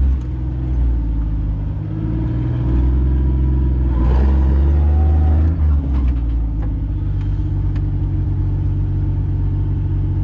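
Jeep CJ5's engine running as it crawls down a rocky creek bed. The engine note rises and then drops back about six seconds in, with a few knocks and rattles from the Jeep.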